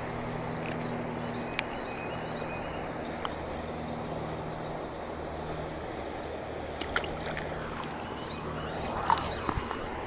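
Steady rush of river water below a dam, with a low steady hum underneath. Near the end come a few sharp clicks and a swish as a spinning rod is cast and a bobber goes out.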